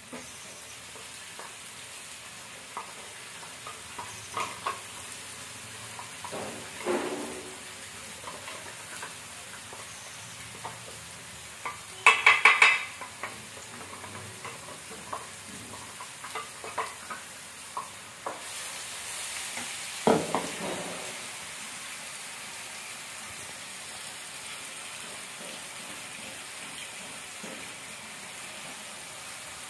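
Onions sizzling as they fry in oil in a non-stick pan, while onion-and-masala paste is scraped in with a metal spoon and stirred with a wooden spatula. There are small scrapes and clicks throughout, and a quick run of loud metal clinks about twelve seconds in. The sizzle gets louder from about eighteen seconds on.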